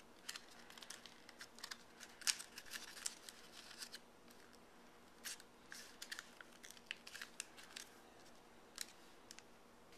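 Faint crinkling and rustling of a sheet of origami paper being folded and creased by hand during a petal fold: irregular crackles in clusters through the first four seconds and again from about five to eight seconds.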